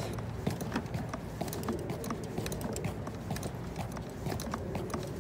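Footsteps on a paved path, with irregular small clicks and knocks from carried fishing rods and tackle.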